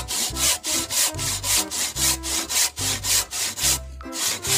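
Steel hand saw cutting through a thin wooden log in quick back-and-forth strokes, about three to four a second, with a brief pause near the end.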